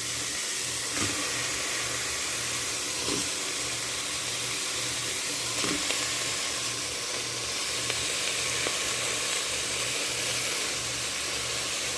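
Steady sizzling of oil in a casserole pot with onion, ginger and garlic, with a few light knocks.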